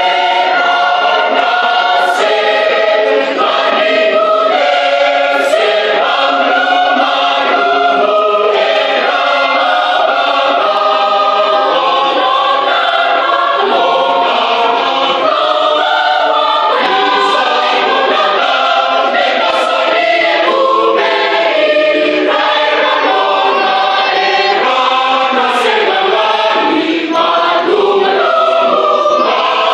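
A large mixed choir of women, men and children singing a Fijian hymn in parts, loud and unbroken.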